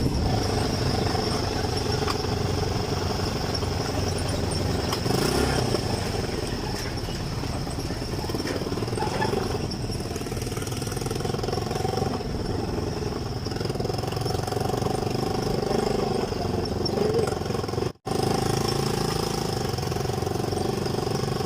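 An elderly woman snoring, a rough rumbling snore over a steady background hum, with a brief dropout about three-quarters of the way through.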